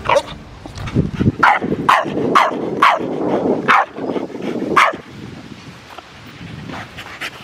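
A dog barking in play: about eight sharp barks over the first five seconds, each falling in pitch, with a low rumble between them. The barking stops about five seconds in.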